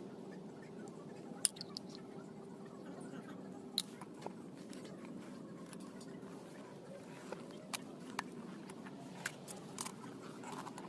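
Scattered sharp clicks and snips, about seven spread irregularly through the stretch, over a steady low hum.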